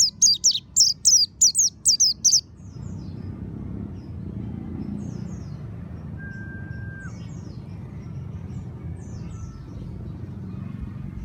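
Mountain white-eye song: a fast run of high, downward-sweeping chirp notes that stops about two and a half seconds in. After that a low steady rumble remains, with faint distant chirps and a single held whistle about six seconds in.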